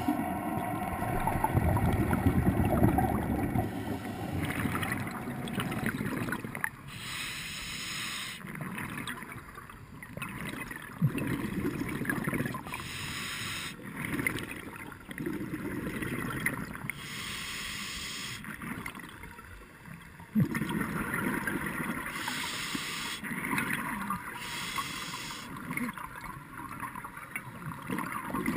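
Scuba diver breathing through a regulator, heard underwater: a hissing inhale alternating with a gush of exhaled bubbles every few seconds.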